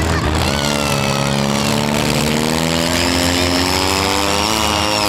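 Four-cylinder demolition derby car engine revving hard and held high, its pitch slowly climbing, then falling away shortly before the end, over the low rumble of other derby engines running.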